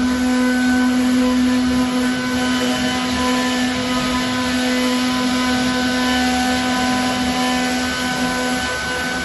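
A CNC router running steadily: a continuous machine hum with one strong even tone and higher overtones over a wash of noise.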